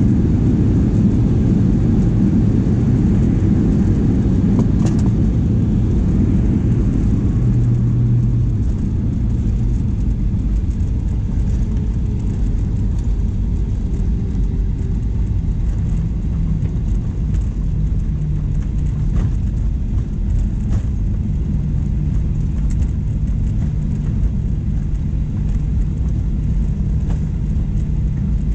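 Cabin noise of a Boeing 737-800 during the landing run: a loud, deep rumble of engines and airflow that eases somewhat about eight seconds in, with a few faint knocks.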